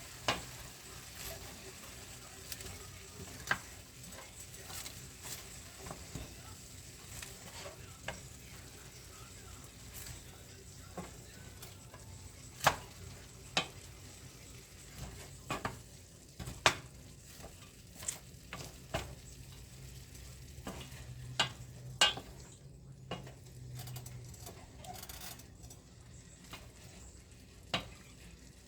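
Food sizzling in a pan while a cooking utensil stirs it, with irregular sharp clicks of the utensil against the pan.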